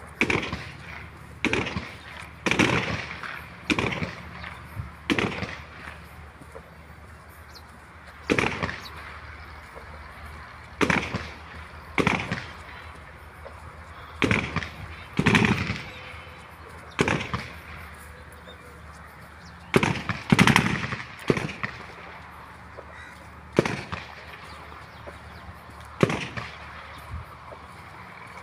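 A series of sharp thumps or pops, one every second or two at an uneven pace, each fading quickly, over a steady background rush of noise.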